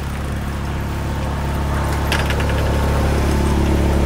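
An engine running steadily with a low hum that grows slowly louder, with a few light clicks about two seconds in.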